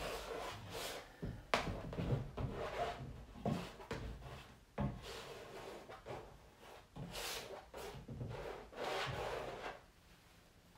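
Irregular rubbing and scrubbing strokes against a stretched canvas as colour is worked onto it by hand, with a few sharper taps, trailing off near the end.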